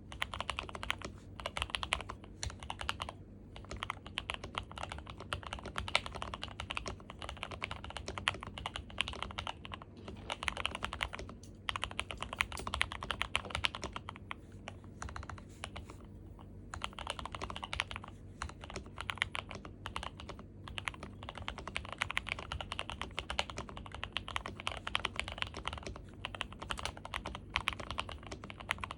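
Continuous fast typing on a Dukharo VN66 gasket-mount mechanical keyboard with a steel plate, PE foam and tape mod, lubed and filmed NK Silk Emerald linear switches and GMK Olivia clone keycaps: a dense run of keystrokes with a few short pauses, about 3, 11 and 16 seconds in.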